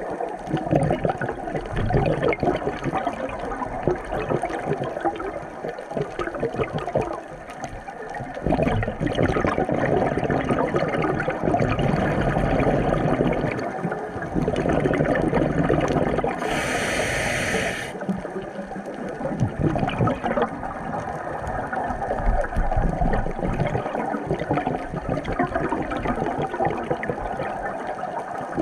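Water sloshing and gurgling, with a brief hiss about two-thirds of the way through.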